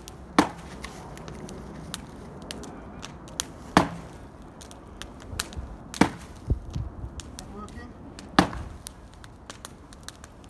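Four heavy blows about two seconds apart: a chunk of log swung as a mallet, hammering a wedge into a stump that is holding at a big knot.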